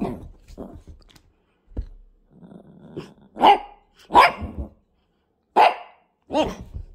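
Small dog barking in play: a low growl, then four loud, sharp barks in the second half.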